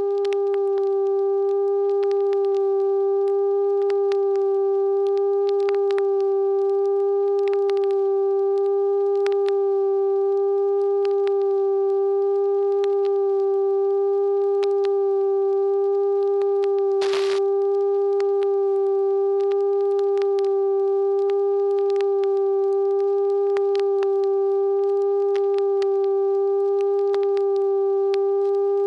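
A steady, unchanging hum-like tone with a few overtones, held throughout, with faint scattered clicks and one sharper click about 17 seconds in.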